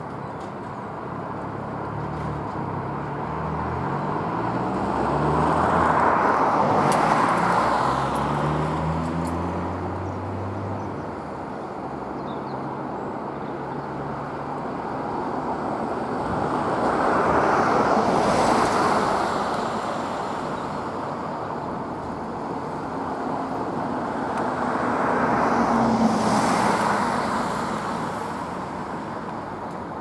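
Road traffic: vehicles passing by, three swells of rushing tyre and engine noise that build and fade over several seconds each. A low engine hum shifts in pitch under the first pass.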